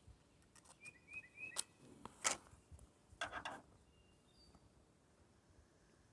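A tobacco pipe being relit: several sharp clicks, the loudest about two seconds in, then a short scratchy burst about three seconds in. A few brief bird chirps can be heard.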